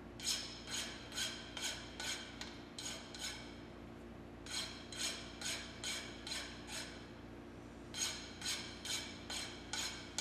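Hand file scraping along the edges of a freshly milled 4140 steel block to deburr it: short strokes about two a second, in four runs with brief pauses between them.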